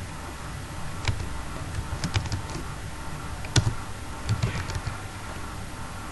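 Computer keyboard keystrokes: irregular clicks of typing, single taps and short runs of a few keys, over a steady low hum.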